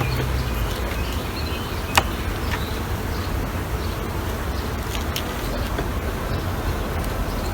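Honeybees buzzing steadily around an open hive, with one sharp click about two seconds in and a few fainter clicks.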